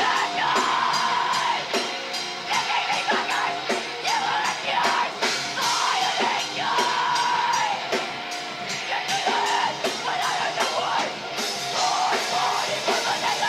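Live rock band playing a heavy song: loud electric guitar and a drum kit keeping a fast, steady beat.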